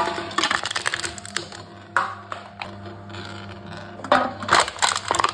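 Aluminium drink cans being crushed by a machine: bursts of crinkling, crackling metal, one at the start, a short one about two seconds in, and a longer one about four seconds in.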